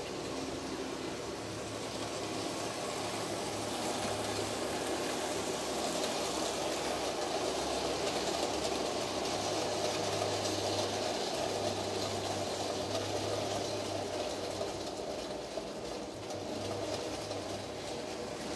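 N-scale model train running along the track: a steady small-motor hum with wheel rumble, growing louder towards the middle and easing off near the end.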